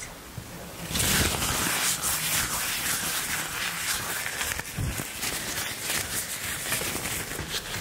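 Close-up ruffling sound made right at one ear as a hearing-test stimulus: a dense, crackly rustle that starts about a second in and carries on steadily.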